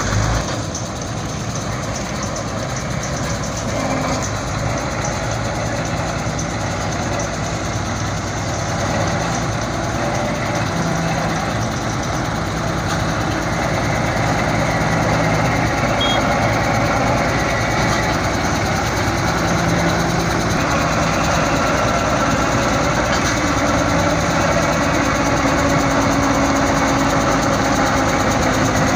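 Combine harvester's engine running steadily as the machine drives slowly through shallow water, growing louder as it comes closer.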